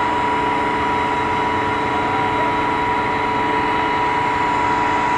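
Spartan Gladiator fire truck's diesel engine running with the Rosenbauer 115-foot T-Rex aerial ladder's hydraulics working. A steady high whine sits over the engine note during basic aerial tests.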